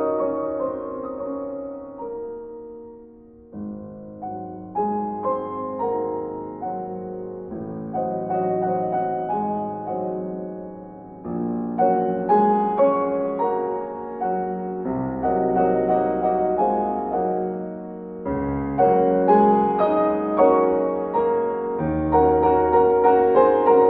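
Piano music: a melody over chords, with notes struck in steady succession, growing louder in the second half.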